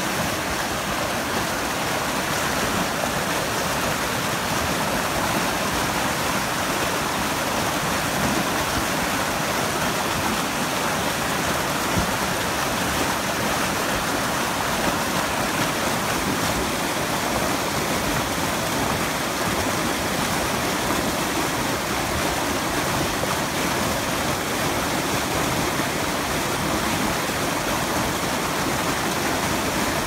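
High alpine creek swollen with late-spring snowmelt, white water rushing over rocks in a steady roar.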